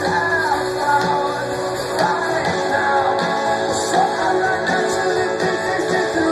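Rock band playing live, a singer's voice over guitars and drums.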